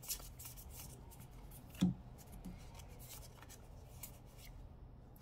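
Magic: The Gathering cards being slid one over another in the hands as a pack is looked through, giving soft papery slides and flicks. One brief louder low sound comes about two seconds in.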